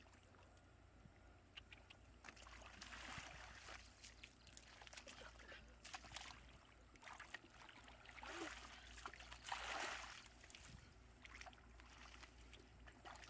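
Hands sloshing and splashing through shallow muddy water, groping for fish, in faint irregular bursts that are loudest about ten seconds in.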